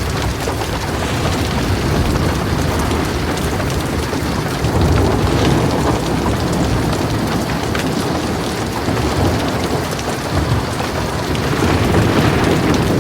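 Heavy rain pouring steadily, dense drop noise with single drops standing out, over a low rolling thunder rumble that swells about five seconds in and again near the end.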